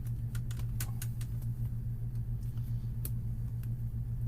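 Small plastic clicks and ticks as an HP 15 laptop's screen bezel clips are pried loose with a spudger, over a steady low hum; a sharp loud snap right at the end, a bezel clip popping free or breaking.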